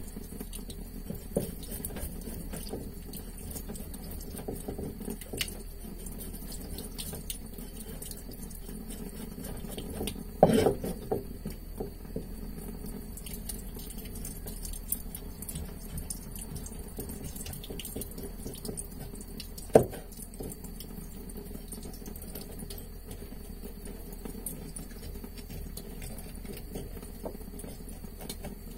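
Tap water running in a thin stream onto a wooden cutting board, with faint knife scraping and ticking as a Japanese whiting is filleted and its belly bones are shaved off. A sharp knock of the knife on the board comes about ten seconds in, and another about twenty seconds in.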